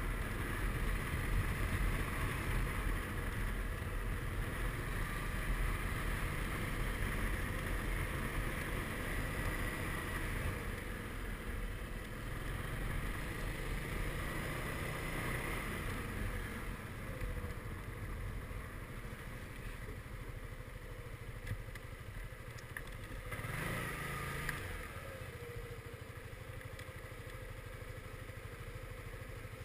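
Suzuki Burgman 400 scooter's single-cylinder engine running as it rolls slowly along, then easing off and settling toward idle as the scooter comes to a stop near the end.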